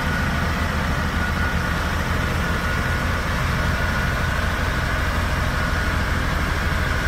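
XCMG XS203J single-drum road roller's diesel engine running steadily, with a steady high whine over the low engine note.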